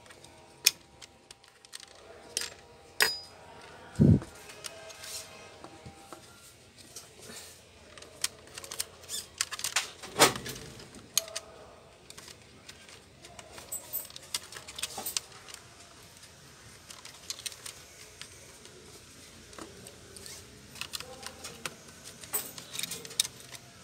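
Irregular clicks, taps and rattles of a Lenovo Y460 laptop's plastic casing and parts being handled and pried apart during disassembly. There are two louder thumps, one a few seconds in and one about ten seconds in.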